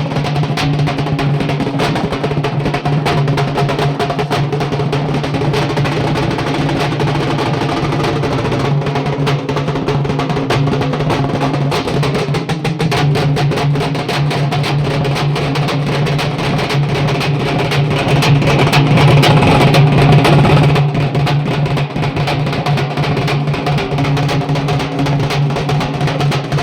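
A group of halgi frame drums beaten with sticks in a fast, continuous rhythm, very loud. It swells louder for a few seconds about two-thirds of the way through.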